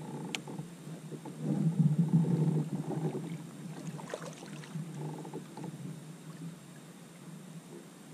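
Water sloshing and knocking against a fishing kayak's hull, with a sharp click near the start; it is busiest about two seconds in and fades away in the last couple of seconds.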